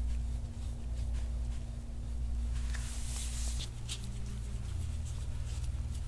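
Stainless steel soft-tissue scraping tool drawn in short strokes over the oiled skin of a back, a faint scratchy rasp. Underneath is a steady low hum that shifts in pitch a little past halfway.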